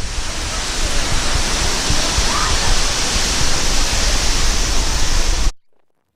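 Jogini waterfall's water falling, a loud steady rush that cuts off abruptly about five and a half seconds in.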